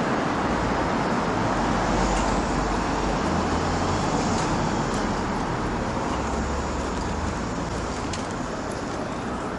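Steady urban road-traffic noise: a continuous rumble and hiss of passing cars, easing slightly toward the end.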